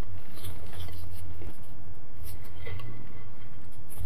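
Silicone spatula stirring thick cake batter in a glass bowl: soft wet squishing with light scrapes against the glass, over a steady low hum.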